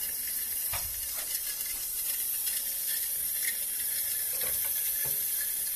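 Siamp fill valve in an open toilet cistern letting water in slowly, a steady thin hiss and trickle. The slow fill is usually the sign of a worn or split rubber diaphragm washer in the valve.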